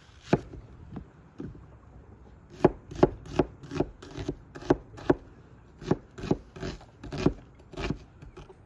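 Chef's knife dicing an onion on a wooden cutting board: about fifteen sharp knocks of the blade on the board, roughly two a second, with a short pause about a second and a half in.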